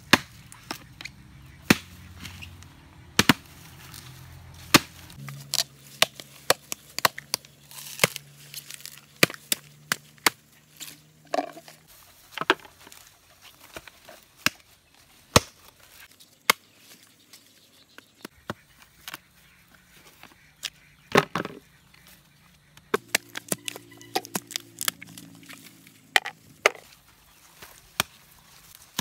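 Machetes chopping into and cracking open mature coconuts: a long run of sharp, irregular chops, some coming in quick clusters.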